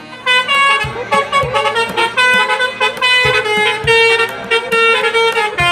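A coach's multi-tone musical horn (an Indonesian 'telolet' horn) plays a loud, stepping tune of held notes, several tones sounding together.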